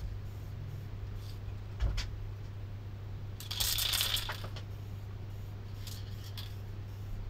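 A few light clicks and a brief rattling, rustling burst about halfway through, over a steady low hum.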